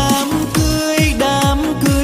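Instrumental passage of a Vietnamese pop wedding song: an electronic beat of about two kick drums a second under a held, bending synth melody.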